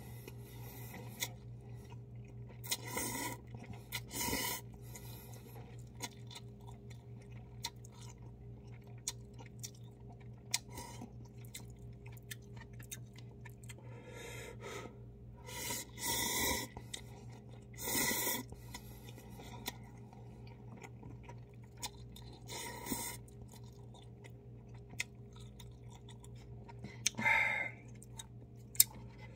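A person eating instant cup ramen: several loud slurps of noodles, each about a second long and spread through, with quieter chewing and small mouth clicks between them. A steady low hum runs underneath.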